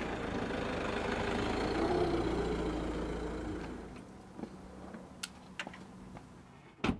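Citroën C3 Picasso car driving up and pulling in, its engine and tyre noise steady, then fading out about four seconds in. A few faint clicks follow, and a sharper knock comes near the end.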